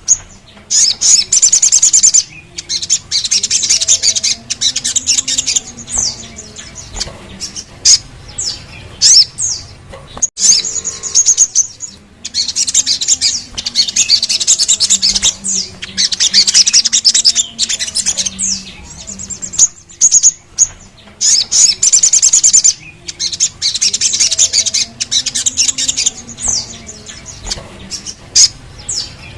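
A sogon (sogok ontong), a spiderhunter, singing. It gives high, rapid trilling rolls a second or two long, again and again, between short, sharp sweeping call notes.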